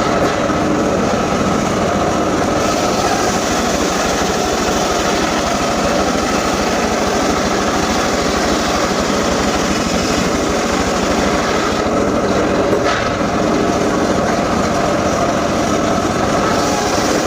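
Engine-driven timber saw running steadily and loudly, with no clear rise or fall in pace.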